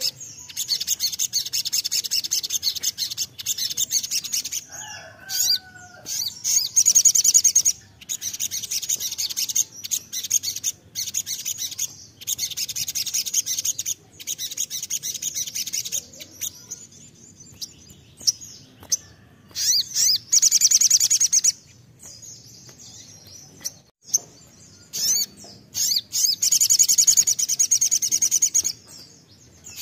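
Male olive-backed sunbird (sogon) singing hard in a cage: long, rapid, high-pitched trilled phrases of a few seconds each, broken by short pauses.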